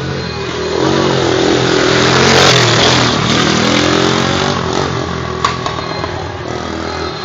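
ATV engine running and revving, its pitch rising and falling, loudest about two to three seconds in. A sharp click about five and a half seconds in.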